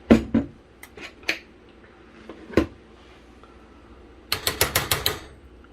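Sharp knocks and clinks of kitchen containers and utensils being handled at the counter: a few scattered ones, then a quick even run of about eight clicks near the end.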